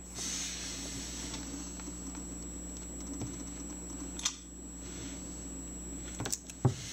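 Steady low room noise with a light tap about four seconds in, then a few sharp clicks near the end as a finger presses the power key of a switched-off MacBook Pro to start it booting.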